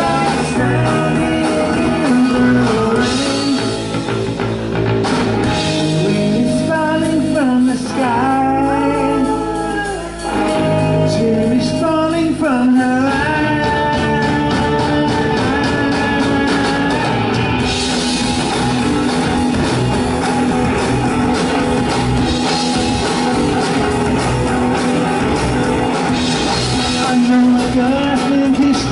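Live rock band playing: electric guitar, bass guitar and drum kit, with a male lead vocal singing over them.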